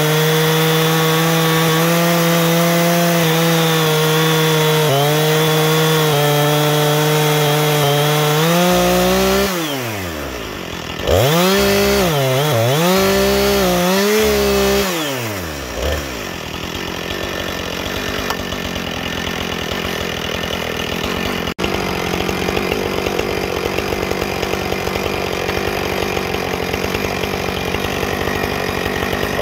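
Husqvarna 460 Rancher two-stroke chainsaw at full throttle, ripping a cedar log lengthwise in an Alaskan chainsaw mill. About nine seconds in the revs drop, the throttle is blipped up and down a few times, and from about sixteen seconds the saw runs low and rough at idle before revving up again at the very end.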